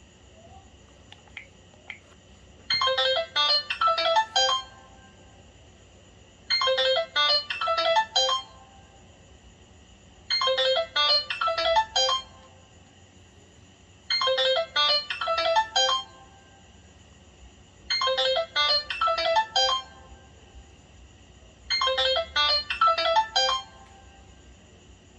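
LG Classic Flip phone playing a short electronic melody ringtone through its speaker. The same phrase of quick notes repeats six times, about every four seconds.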